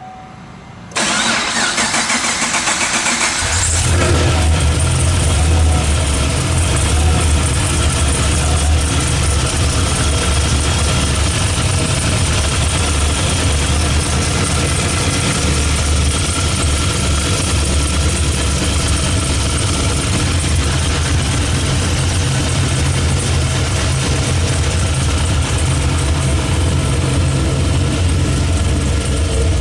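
Kenne Bell supercharged 6.2-litre V8 of a Camaro SS being started: the starter cranks about a second in, the engine catches a few seconds in, then idles steadily through long-tube headers and Flowmaster exhaust.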